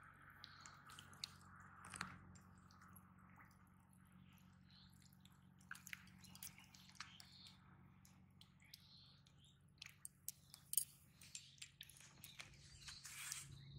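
Near silence: faint outdoor ambience with a low steady hum and scattered small clicks, the sharpest a little after ten seconds in.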